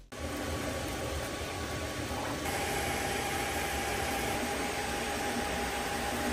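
FDM 3D printers running: a steady fan hiss with a faint whining tone from the motors, which drops lower about two and a half seconds in.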